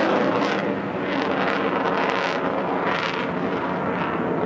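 Jet engine noise from an F-22 Raptor's twin Pratt & Whitney F119 turbofans as the fighter flies a demonstration overhead: a steady rushing sound that swells and eases slightly.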